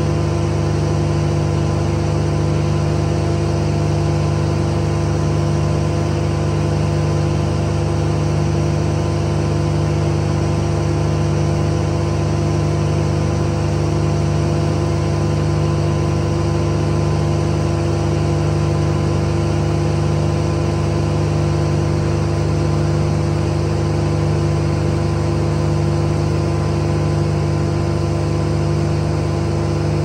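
An engine running at a constant speed, a loud, even drone that holds the same pitch and level throughout.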